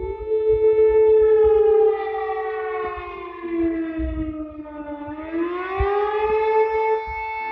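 Civil defense warning siren sounding a held tone that sags in pitch from about two seconds in, bottoms out near five seconds, then climbs back to its steady pitch.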